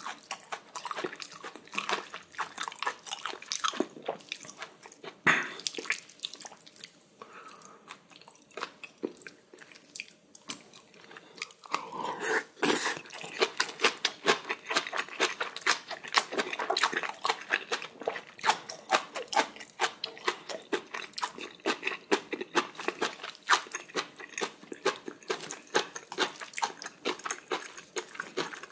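Close-miked chewing and mouth smacking of a person eating braised kimchi with whole beef large intestine (daechang) and rice, a quick run of short wet clicks throughout, louder for a moment about halfway.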